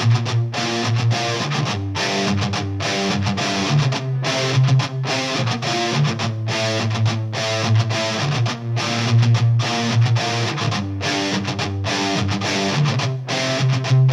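Background rock music led by electric guitar.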